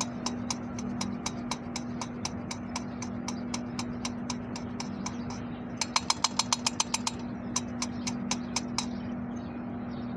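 Hand lapping of the valves in an engine cylinder head with emery grinding paste: the lapping stick is spun back and forth between the palms and the valve clicks against its seat in trains of rapid, sharp clicks. The clicks come fastest about six seconds in and stop near the end. A steady low hum runs underneath.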